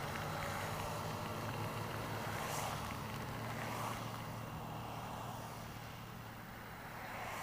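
Honda Ruckus 49cc four-stroke scooter engine running steadily while riding, under a hiss of wind and rain on the microphone that eases somewhat in the second half.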